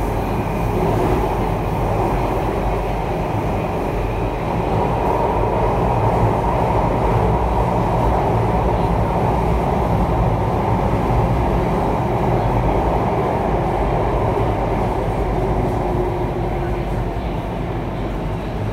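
Alstom Metropolis C830 metro train running through a tunnel, heard from inside the car: a steady rumble and roar of wheels on rail that eases slightly near the end.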